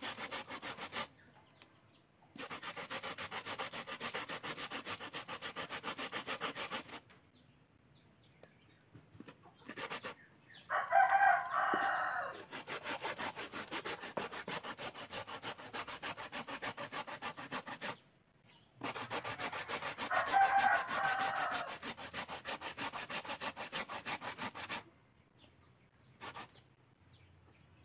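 Cassava being grated by hand on a metal grater: quick, even scraping strokes in runs of several seconds with short pauses between. A rooster crows twice, loudest about eleven seconds in and again about twenty seconds in.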